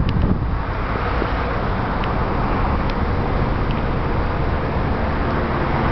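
A car driving, heard from inside: a steady rumble of engine and road noise.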